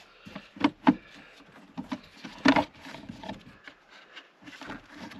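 Clips on a Jeep's engine air-filter housing unlatched by hand: several sharp plastic clicks, with plastic rubbing as the housing lid is worked loose for an air-filter change.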